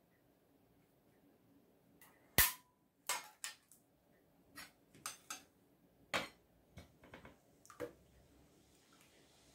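Metal food tin and cutlery clicking and clinking. One sharp metallic click with a short ring comes about two and a half seconds in, as the ring-pull lid comes off the tin. A run of about a dozen lighter clicks follows as a fork and the tin knock against a plate while canned peach slices are tipped out.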